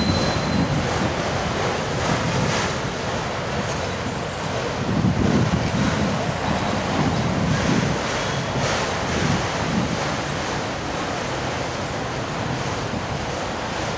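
Autorack freight cars rolling past: a steady rumble of steel wheels on rail that swells and eases, with some wind on the microphone.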